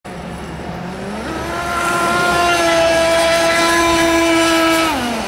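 Delta Force CMB 91RS RC racing catamaran running at speed, its motor giving a high, steady whine. The pitch climbs about a second in, holds level at full throttle, then drops near the end as the throttle comes off.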